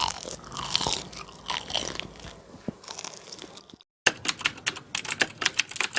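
Close-miked crunching and chewing of crispy fried banana cake, bánh chuối chiên. About four seconds in the sound cuts to silence for a moment, then a quick run of sharp, crisp crunches follows.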